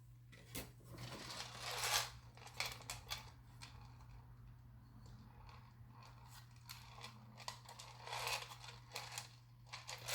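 Faint workbench handling noises: light clicks and rustling of small dashboard parts and plastic film, with longer rustling scrapes near 2 seconds and again near 8 to 9 seconds, over a steady low hum.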